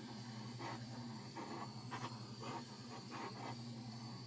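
Small handheld fuel torch hissing steadily as it is passed over wet poured acrylic paint to pop air bubbles.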